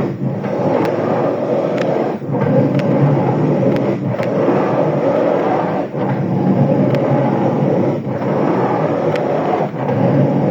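Ford Fusion's electric power steering making a loud, continuous noise while the steering is worked, in stretches that break off briefly about every two seconds; the steering still gives assistance despite the noise.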